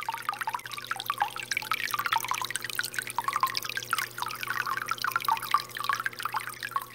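Aquarium water trickling and bubbling in quick, irregular drips and splashes, over a steady low hum.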